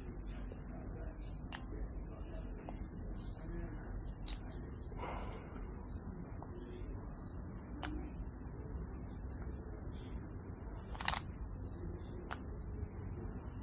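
Steady high-pitched chorus of insects, with a few sharp clicks or taps scattered through it, the loudest one late on.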